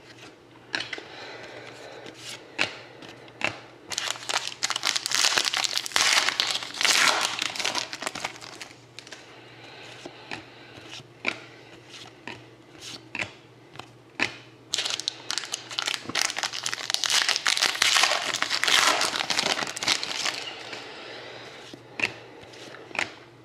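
Panini Contenders hockey-card pack wrappers being torn open and crinkled, in two long bouts of rustling. Between the bouts come scattered sharp clicks and light rustles as the cards are handled.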